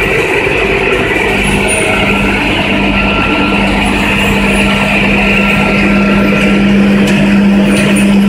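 Caramel popcorn production line machinery running: steady, loud mechanical noise from electric drive motors and the rotating stainless-steel coating drum, with a steady low hum that grows stronger about two seconds in.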